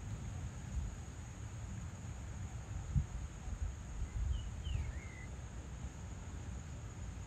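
Evening insects, crickets among them, keeping up a steady high-pitched drone over a low rumble, with a bird giving a few short gliding chirps about four to five seconds in.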